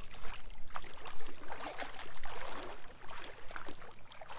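Irregular splashing in shallow river water as a man wades and handles a freshly snagged fish at the water's edge.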